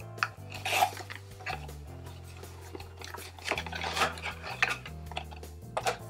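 Cardboard packaging and small plastic parts being unpacked and handled on a table: rustling, scraping and several short clicks and knocks, over steady background music.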